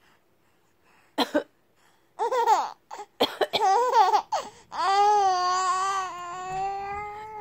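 A nearly four-month-old baby squealing and laughing in high-pitched bursts, ending in one long squeal, excited by a person's coughing. A short cough about a second in.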